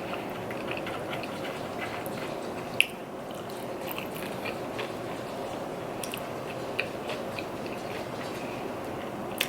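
A person chewing and biting food close to the microphone, with scattered small sharp mouth clicks, the sharpest about three seconds in.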